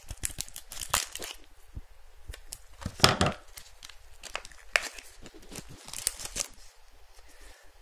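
Packaging being torn open and crinkled by hand, in a series of short rips and rustles, the loudest about three seconds in.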